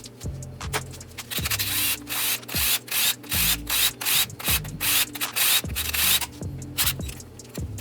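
Rhythmic rubbing or scraping strokes, about two a second, over background music with a bass line.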